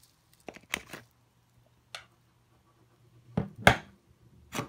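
Several sharp clicks and knocks of hard plastic and metal skateboard parts being handled as a wheel with bearings is fitted toward the truck axle, the loudest knock about three and a half seconds in.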